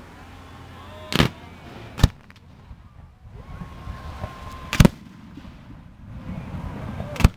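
Fireworks display: four sharp bangs from bursting shells, the first two close together a little over a second in and the other two a few seconds apart.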